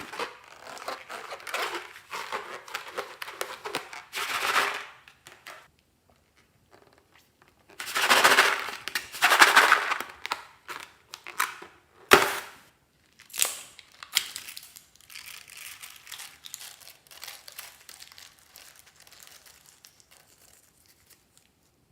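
Crinkling and rustling handling noise, loudest about eight to ten seconds in, with one sharp snap about twelve seconds in.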